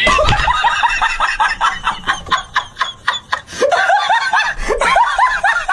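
High-pitched laughter: a fast run of short 'ha' bursts, with a brief break midway before it starts up again.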